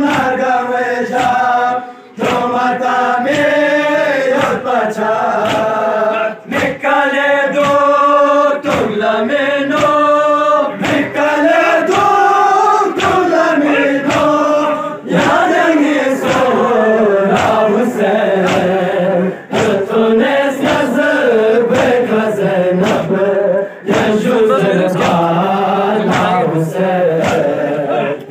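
A group of men chanting a noha, a Muharram lament, with a steady beat of sharp chest-beating slaps (matam) under the singing. There are brief pauses for breath between the lines.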